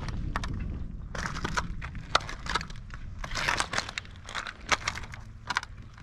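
Footsteps crunching over shell-covered beach rocks, about one step a second, growing fainter toward the end.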